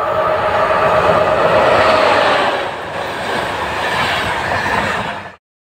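EP09 electric locomotive and its ÖBB passenger coaches passing close by at speed: a loud rush of wheels on rail, loudest a second or two in, that cuts off suddenly near the end.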